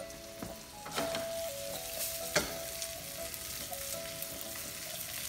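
Sliced red peppers sizzling steadily in a frying pan, with two sharp clicks about one and two and a half seconds in.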